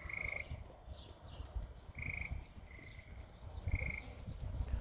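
Frogs calling: four short, high trills, one near the start and the rest between about two and four seconds in, over a low, uneven rumble.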